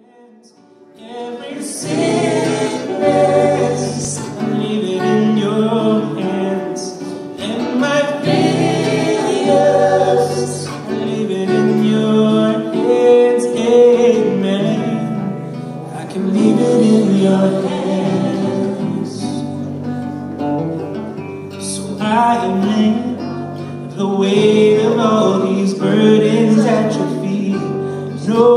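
A man singing a Christian worship song into a microphone, accompanied by acoustic guitar, live. The music swells in over the first two seconds and then runs at full level.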